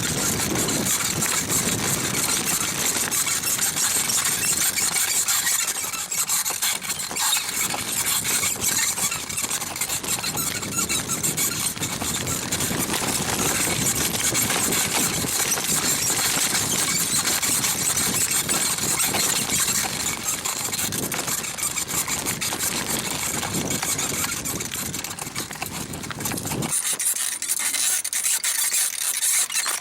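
A small rebuilt Mifa bicycle saddle with a faux-leather cover squeaking and rubbing continuously under a rider's shifting weight.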